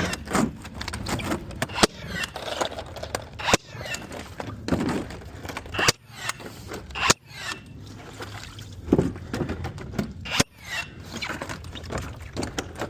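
Bosch GNB 18V-12 cordless concrete nailer firing steel pins into concrete: about six sharp shots, one every second or two, at uneven intervals.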